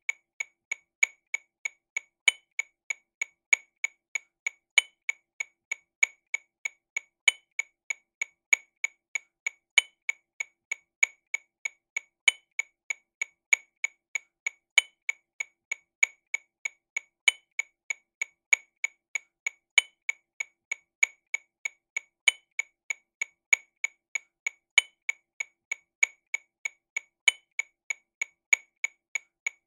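TAMA RW200 Rhythm Watch metronome clicking sixteenth notes at 48 BPM. The clicks come evenly, about three a second, with a louder accented click every two and a half seconds.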